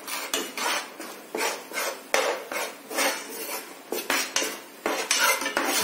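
A spoon scraping and knocking against a kadai in uneven strokes, about two a second. It is stirring rice flour into thick jaggery syrup for adhirasam dough.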